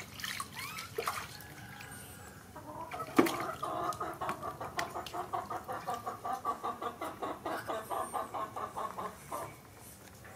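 Rapid, rhythmic clucking calls, about five a second, run for several seconds from a few seconds in and stop about a second before the end. A sharp knock comes shortly after they begin.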